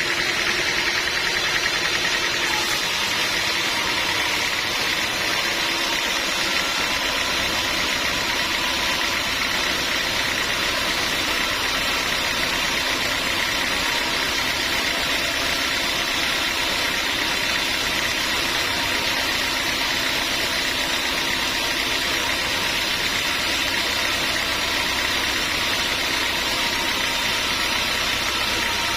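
Sawmill machinery running with a steady, unchanging mechanical drone.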